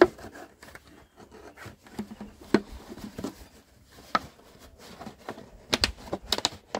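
A large plastic water jug being handled while cord is worked around it: scattered light scrapes and taps on the plastic, with a few sharp clicks close together near the end.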